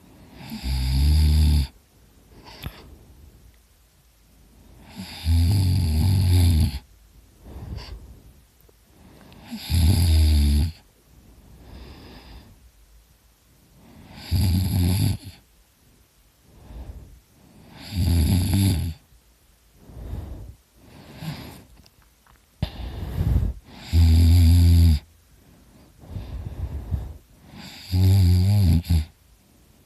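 A drunk man snoring really loud: about seven low, buzzing snores, each about a second long and roughly four seconds apart, with softer breaths between.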